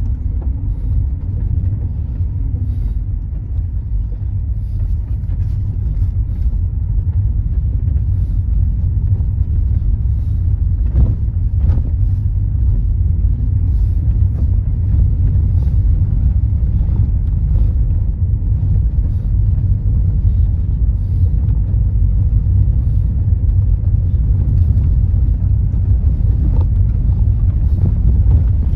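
Steady low rumble of a car driving, heard from inside the cabin: engine and tyre noise on a paved road, with a few brief knocks partway through and near the end.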